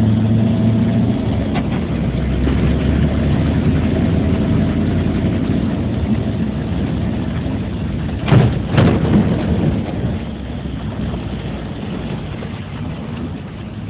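Car engine running, heard from inside the cabin, under a steady rush of noise. About eight seconds in come two loud thumps in quick succession.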